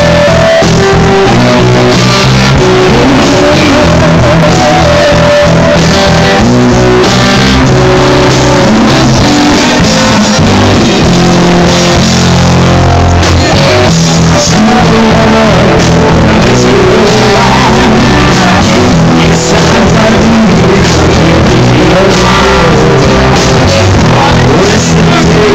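Live rock band playing loudly: electric guitars, bass, drums and vocals, recorded close to full level throughout.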